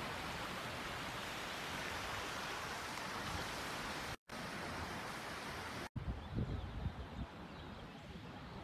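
Steady rushing of a swollen, fast-flowing flooded river. It breaks off twice briefly, and after the second break it is quieter, with a few irregular low rumbles.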